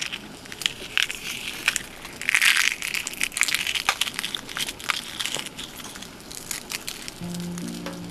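Dried red chili peppers being crushed and crumbled between the fingers, a dry crackling and crinkling of brittle pepper skins breaking apart. Background music comes in near the end.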